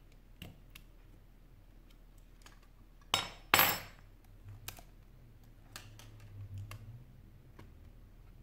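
Small clicks and taps of metal tweezers and small phone parts being handled during a smartphone teardown, with two louder clattering scrapes, one right after the other, about three seconds in.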